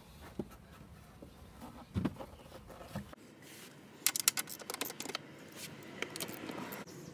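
A few knocks from plastic dash trim being handled, then a ratchet wrench clicking in quick runs about four seconds in, with more scattered clicks after, as the 10 mm bolts under the dash are undone.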